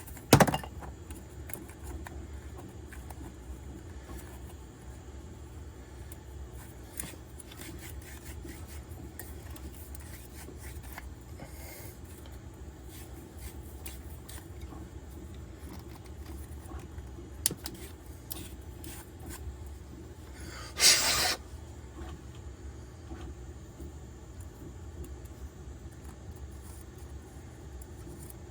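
3D-printed plastic parts rubbing and scraping as they are worked and screwed together on a tight thread, with scattered small ticks. There is a sharp knock at the start and a short, louder burst of noise about two-thirds of the way through.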